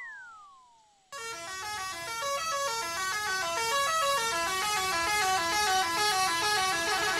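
A falling boing sound effect fades out in the first second. Then, about a second in, a dense layered train-horn sound effect starts, many horn notes stepping up and down at once, and swells louder.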